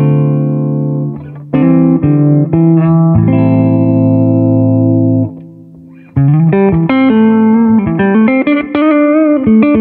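Gibson Custom 1961 ES-335 reissue semi-hollow electric guitar playing strummed chords that are left to ring. From about six seconds in it switches to quicker picked notes and chord fragments, some bent or shaken with vibrato.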